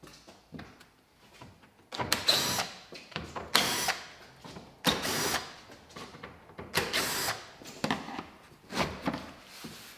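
Cordless drill-driver with a T20 Torx bit backing out the screws of a plastic engine underbody cover, running in several short bursts a second or so apart.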